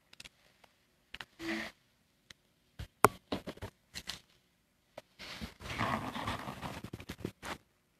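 Handling noise close to a phone's microphone: scattered clicks and taps, then a spell of scratchy rustling from about five seconds in.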